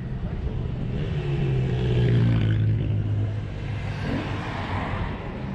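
An engine running with a steady low hum, its pitch sinking slightly, under a rush of noise that swells and fades through the middle.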